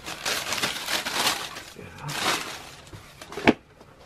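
Shoebox tissue paper rustling and crinkling as it is pulled aside and a sneaker is lifted out, then one sharp tap near the end, the loudest moment.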